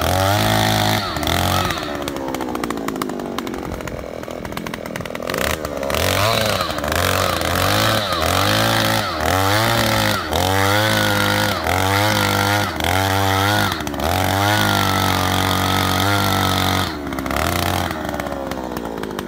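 Oshima 2PS earth auger's 54 cc two-stroke engine driving a 300 mm spiral bit into sandy soil. The engine speed rises and dips over and over, nearly twice a second, through most of the stretch, with a few seconds of slower running before that and a sag near the end.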